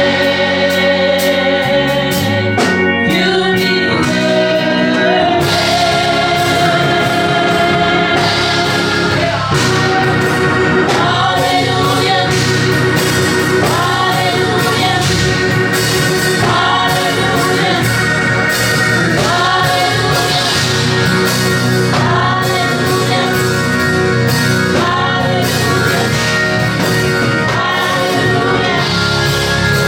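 Gospel music: a choir singing over instrumental backing with a steady beat.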